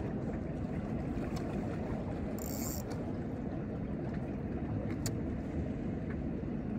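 Steady low wind noise on the microphone, with a single sharp click about five seconds in.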